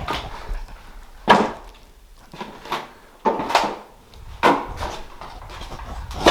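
Footsteps walking, roughly one sharp step a second.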